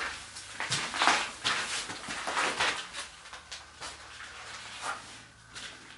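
Irregular scuffing and rustling of footsteps and movement on a gritty floor, with the short echo of a small stone chamber; the scuffs come thickest in the first half.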